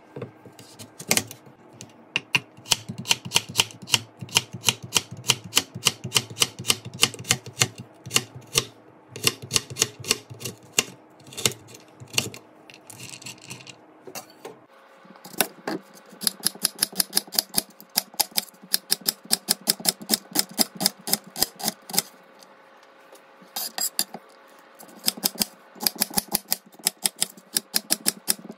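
Chef's knife chopping carrots and then onion on a plastic cutting board: quick, even strokes, each a sharp tap of the blade on the board, several a second, broken by a few short pauses.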